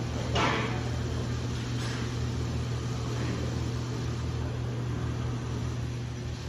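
CNC plasma cutting table and its Hypertherm Powermax 125 plasma system running with a steady electrical hum. Three short hisses of air come through, the first and loudest about half a second in.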